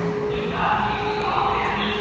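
Building fire alarm system sounding between voice-evacuation messages: a steady alarm tone, with louder noisy stretches coming and going over it.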